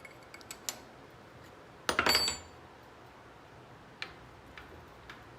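Light metallic clicks and one louder clank with a brief ring about two seconds in: metal tools and fittings being handled while a wood billet is set up in a metal lathe.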